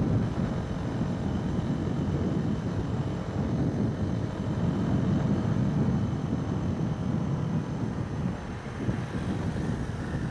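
Suzuki motorcycle cruising on the road: a steady engine drone mixed with wind buffeting on the microphone.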